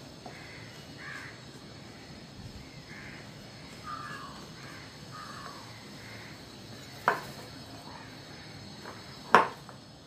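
A spoon stirring rice flour and jaggery syrup into a dough in a bowl, with two sharp knocks of the spoon on the bowl, about seven seconds in and again about two seconds later. A bird calls repeatedly in the background during the first half.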